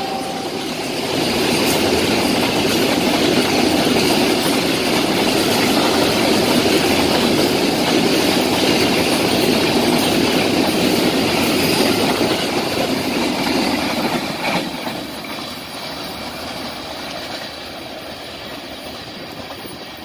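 Loaded freight train of flatcars carrying steel coils rolling past close by, its wheels running steadily over the rails. The sound grows quieter from about three quarters of the way through as the last wagons pass and draw away.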